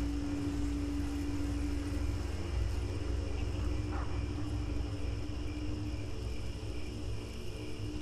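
Night ambience of steady cricket and insect chirring over a continuous low rumble and a steady hum-like drone. A brief faint sweep in pitch comes about halfway through.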